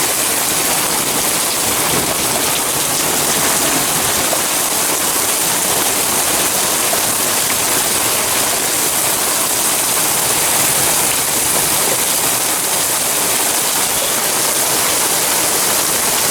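Hail and rain coming down hard, a dense, steady hiss of many small impacts.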